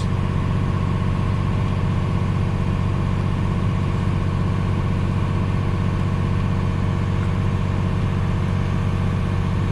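Farm tractor's diesel engine running steadily at a constant speed, a low even drone with steady higher tones over it.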